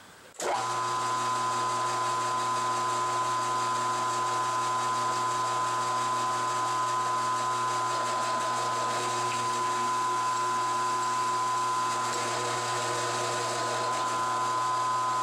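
Round-column mill-drill's spindle motor starting about half a second in and running steadily, a hum with a high whine on top, while the quill is fed for spot drilling.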